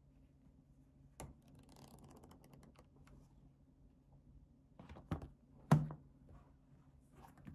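Paper grid notebooks being handled: a quick flurry of page flicks as the pages are leafed through, then a notebook set down on a table with two knocks, the second the loudest, and a short rustle of paper near the end. A steady low hum runs underneath.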